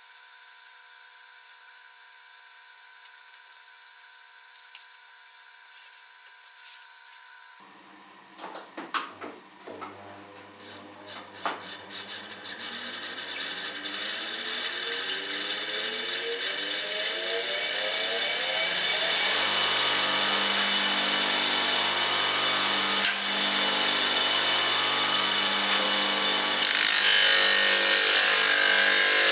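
Homemade disc sander driven by a 1.6 hp electric lawn mower motor starting up. After a few knocks, the motor and plywood disc spin up with a rising whine over about ten seconds, then run steadily. Near the end a piece of wood is pressed against the sanding disc, adding the hiss of sanding.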